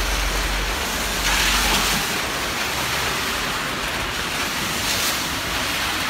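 Strong storm wind from a whirlwind rushing through trees, a steady loud hiss with a gust about one and a half seconds in. Wind buffets the microphone with a low rumble for the first two seconds.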